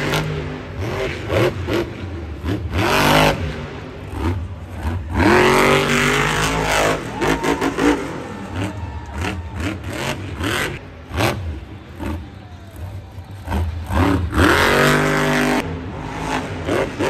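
Grave Digger monster truck's supercharged methanol V8 revving hard in several bursts that rise in pitch, over a steady low engine drone. Sharp clattering knocks come as the truck bangs over the dirt jumps.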